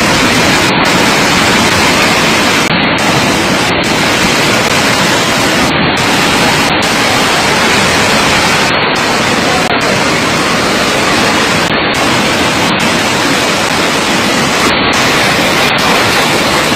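Loud, steady rushing of a muddy flash-flood torrent, an even unbroken hiss of fast-moving water.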